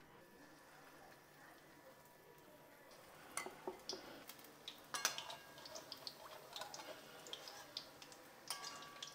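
Urad dal vadas frying in hot oil in an aluminium kadai: faint at first, then from about three seconds in a scatter of sharp crackles and pops, with light clicks of a metal spatula against the pan.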